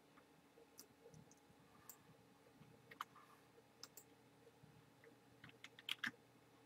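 Faint clicks of a computer mouse: single clicks every second or so, then a quick run of several close together near the end, over a low steady room hum.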